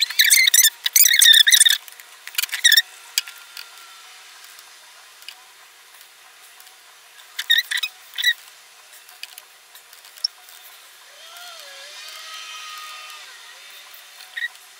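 Handling noises while makeup is gathered and applied: a couple of seconds of rustling and clicking at the start, another short cluster of clicks about halfway through, then quieter dabbing with a few faint high squeaks near the end.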